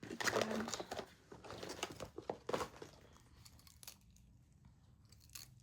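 Close crinkling and rustling from something being handled, with many small clicks, for about the first three seconds, then it goes faint, with one sharp click near the end.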